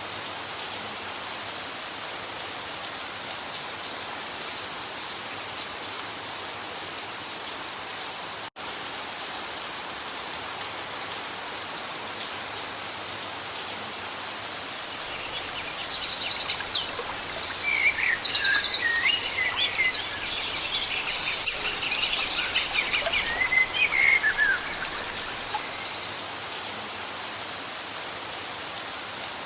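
Moderate rain falling steadily, with a brief dropout about a third of the way in. Past the middle, birds chirp and trill for about ten seconds, louder than the rain.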